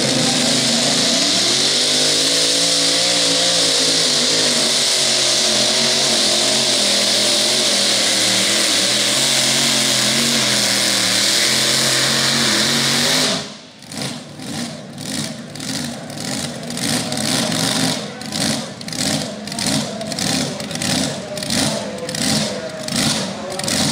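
Mini rod pulling tractor's engine at full throttle during a pull, climbing in pitch over the first few seconds and then holding steady. About thirteen seconds in it cuts off abruptly at the end of the pull and drops to a loping idle that pulses about one and a half times a second.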